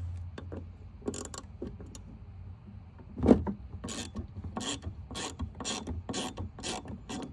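Hand ratchet loosening a tail-light fastener in short, even strokes, about two a second, after a single knock about three seconds in.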